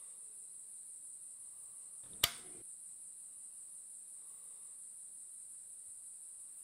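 Crickets chirring steadily in a high, even band, with a single sharp click a little over two seconds in.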